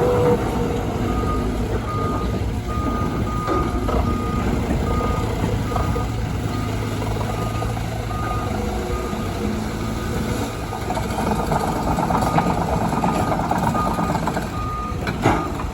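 Reversing alarm on a heavy earthmoving machine, sounding evenly spaced beeps on one pitch over the steady hum of its diesel engine, which means the machine is backing up. A sharp knock sounds near the end.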